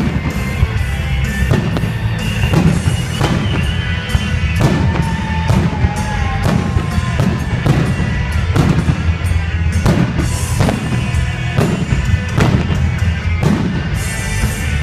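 Loud music with a steady beat, with fireworks bangs and crackles mixed in.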